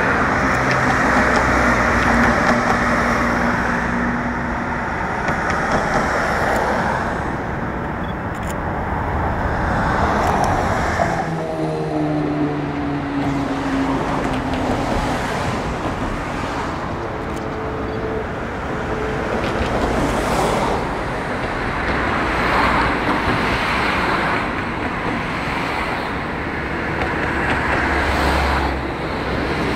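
Steady roar of a Boeing C-17 Globemaster III's four Pratt & Whitney F117 turbofans as it flies low overhead, mixed with road traffic noise.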